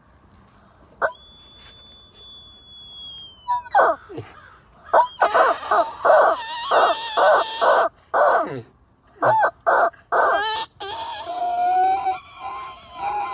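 Rubber screaming chicken toy squeezed over and over: a long, steady high whistle about a second in, then a run of loud, harsh squawks in quick bursts with short pauses.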